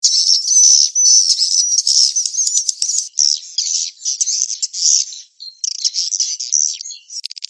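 Swiftlet lure recording of edible-nest swiftlet calls, the 'mating chase' version played to draw swiftlets into a nesting house. It opens with dense, high-pitched twittering and chirps, breaks into choppy bursts, and ends in fast clicking.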